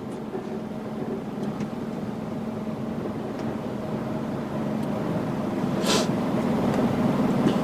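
Lorry engine and road noise heard from inside the cab, a steady hum that grows gradually louder, with a short hiss about six seconds in.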